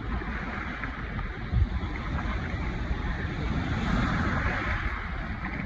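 Ocean surf washing on the beach, with wind buffeting the microphone as a low rumble; one low thud about a second and a half in, and the wash swells about four seconds in.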